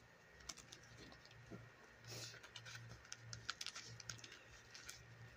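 Faint, scattered small clicks and a brief rustle about two seconds in: hands working a doll's foot out of a tight boot.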